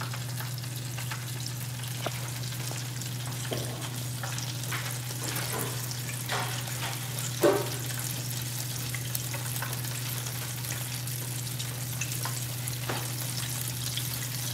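Flour-dredged chicken pieces deep-frying in an electric deep fryer's basket, the oil at about 180 °C sizzling hard with a steady crackling hiss, the vigorous bubbling of the first minutes of frying. A steady low hum runs underneath, and there is one brief louder sound about halfway through.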